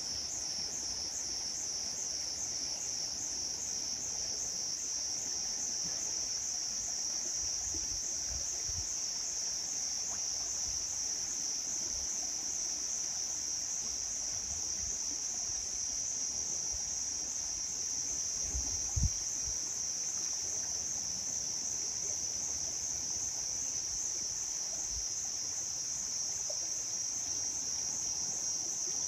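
Insects chirring in one steady, high-pitched drone from the forest, finely pulsing for the first second and then unbroken. A single brief low thump about two-thirds through.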